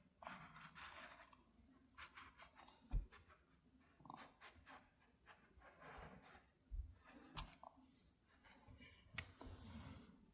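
Quiet handwork on quilted fabric: soft rustling of cloth and thread with small clicks, and a dull thump about three seconds in.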